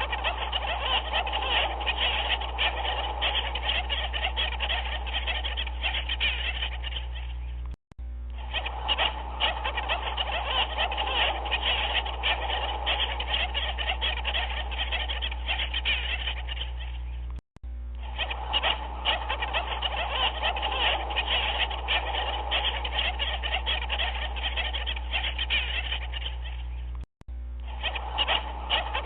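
A dense chorus of many animals calling at once, a looped recording that cuts out briefly three times, about every ten seconds, under a steady low hum.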